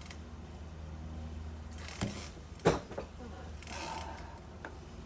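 A drill's chuck being handled while a 3/16-inch left-hand cobalt drill bit is fitted: two sharp clicks a little over half a second apart about two seconds in, then a short rustle, over a steady low hum.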